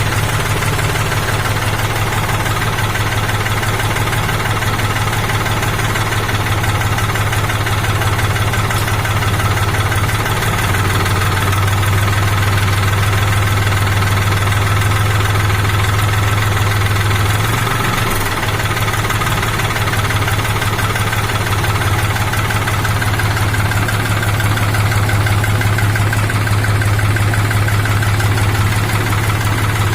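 New Holland TT4.55 tractor's diesel engine running steadily with a low, even hum.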